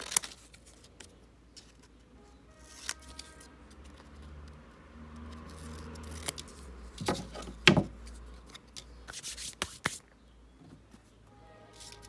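Scissors snipping through thin card in a few sharp cuts, the loudest about seven and eight seconds in, with the card rubbing and rustling as it is handled between cuts. Faint background music comes in briefly near the start and again near the end.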